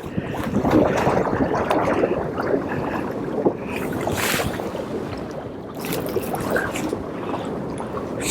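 Wind and water on a rocky seashore: a steady rushing noise, with brief louder gusts about four and six seconds in.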